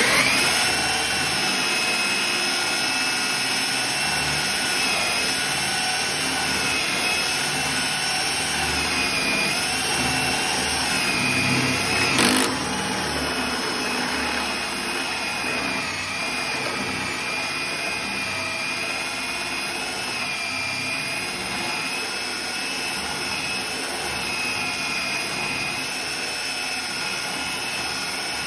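Electric drill running at speed with a titanium-coated step drill bit grinding into a 1.0 mm stainless steel sink, a steady high-pitched whine that wavers slightly, with one louder scrape about 12 seconds in. The friction heats the cut edge until it glows red.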